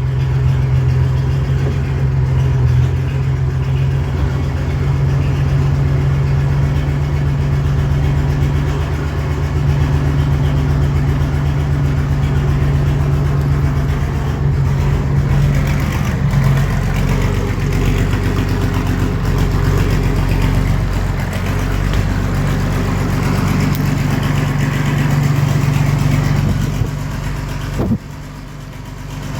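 David Brown 1690 tractor's diesel engine idling steadily just after a cold start, dipping briefly quieter near the end.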